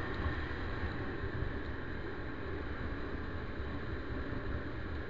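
Steady wind rush on the microphone and road noise while riding a 50cc motorbike, its small engine running underneath.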